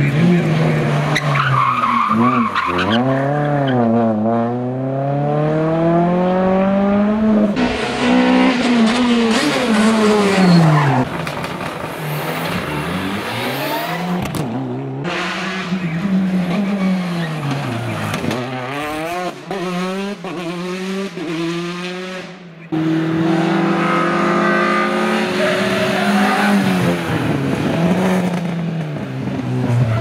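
Rally cars taken one after another through a tight bend, their engines revved hard: pitch climbs through each gear, then drops on lift-off and downshifts, over and over as each car brakes, turns and accelerates away.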